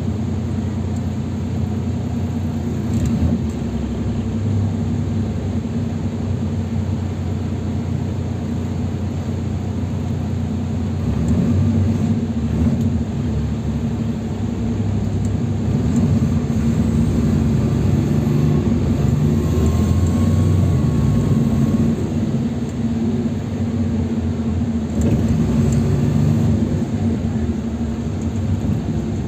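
Cabin sound of a NefAZ 5299 city bus under way: its Cummins ISBe 270B diesel engine running with a steady low hum and road noise. The engine grows louder about halfway through.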